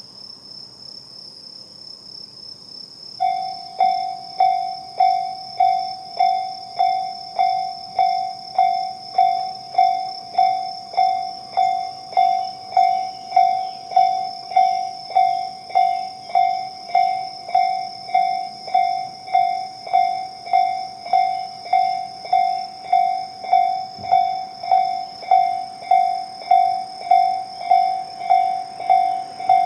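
Japanese railway level-crossing warning bell starting up about three seconds in, then dinging steadily at a slow tempo, about one and a half strikes a second; this is the slow-tempo version of the Tobu crossing tone, signalling that a train is approaching. A steady high-pitched whine runs underneath.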